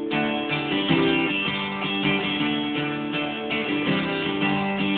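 Instrumental break in a children's song: strummed guitar chords with no singing.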